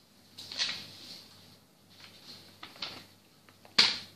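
A sheet of paper being slid into a folder: rustling and handling noises with a few sharp clicks, the loudest one just before the end.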